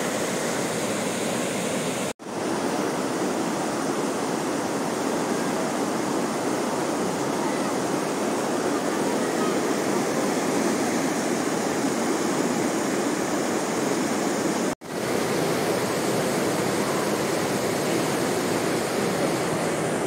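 River water rushing over a low stepped weir and through boulder rapids: a steady, full rushing noise. It cuts out sharply and briefly twice, about two seconds in and about fifteen seconds in, where the shots are spliced.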